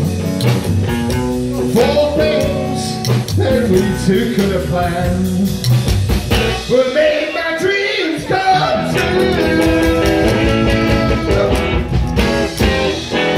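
Live rockabilly band playing a song with electric guitar, a steady drum beat and a singing voice. The low end drops away for about a second past the middle, then comes back.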